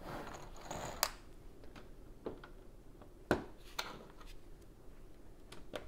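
Small plastic Lego pieces being handled and fitted on a baseplate: a soft rustle, then a handful of sharp clicks and taps, the loudest about three seconds in.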